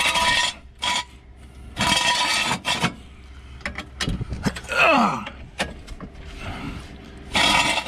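A steel jack stand scraped and dragged over asphalt in three strokes of about a second each, with metal clanks and knocks between them.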